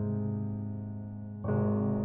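Background piano music: sustained chords, a new one struck about one and a half seconds in.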